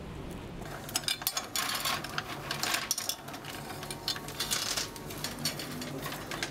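Loose sweets clattering and rattling as they are scooped out of plastic pick-and-mix bins and into bags: an irregular run of quick clicks and rattles, starting about a second in.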